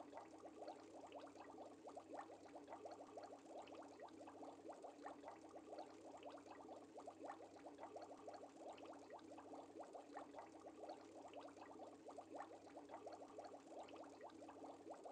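Faint, continuous bubbling of an aquarium air stream: a dense run of tiny pops over a steady low hum.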